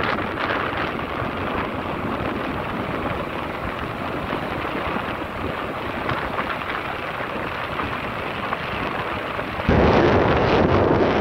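Wind buffeting the microphone of a camera on a moving motorcycle, a steady rumbling rush that jumps suddenly louder near the end.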